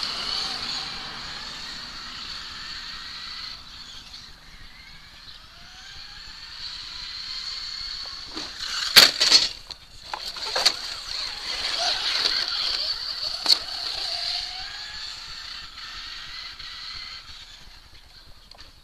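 Traxxas Slash 2WD radio-controlled truck's electric motor and drivetrain whining high, revving up and down in rising glides as it is driven. About halfway through come several sharp knocks and crunches as the truck lands and tumbles on the mulch pile, then one more knock a few seconds later.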